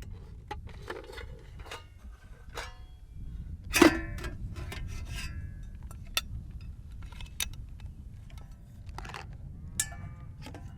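Camping gear being handled: scattered clicks, clinks and knocks, the loudest a sharp knock with a short ring about four seconds in, over a steady low rumble.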